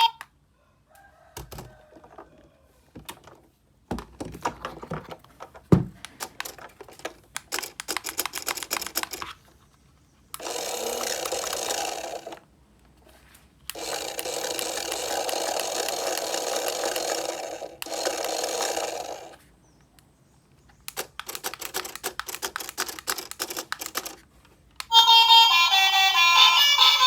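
A toy bus being handled: scattered clicks and crackles, then two stretches of steady whirring noise, the second one longer. Near the end a tune starts, loud and steady.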